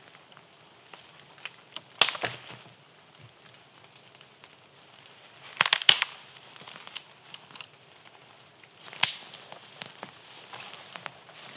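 Dead branches being snapped off a tree by hand: loud sharp cracks about two seconds in, near the middle and about nine seconds in, among smaller crackles of twigs breaking.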